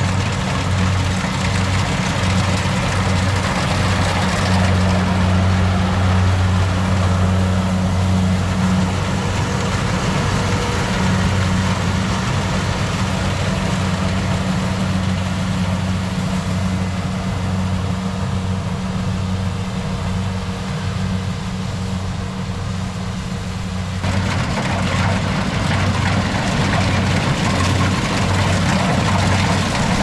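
Engine of rice-harvesting farm machinery running steadily, a strong low hum under mechanical rattle. The rattle eases off for a while and comes back abruptly near the end.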